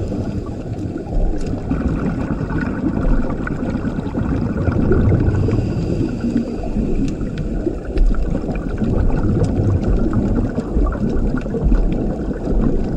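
Underwater ambience picked up by a diving camera: a steady low rush of moving water with gurgling and a few faint clicks.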